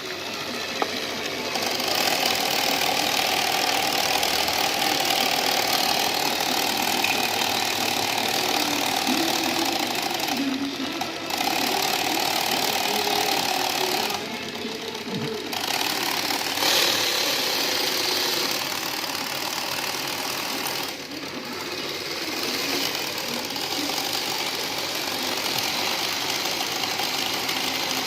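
Diesel locomotive engine running steadily while being warmed up, a dense mechanical clatter with brief dips in its higher sound now and then.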